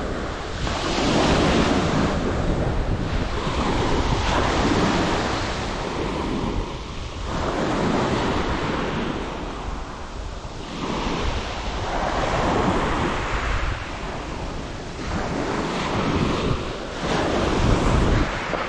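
Small waves breaking and washing up a shingle beach, swelling and ebbing every few seconds, with wind buffeting the microphone.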